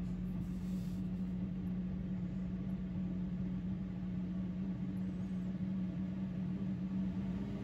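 5 kW Chinese diesel parking heater running just after lighting, its blower fan giving a steady hum with a constant low tone.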